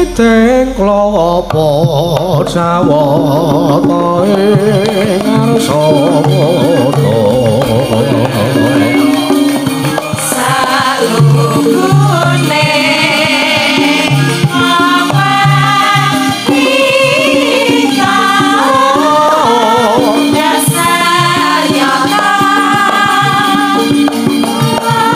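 Javanese gamelan music playing steadily, with a wavering sung melody over repeated held notes.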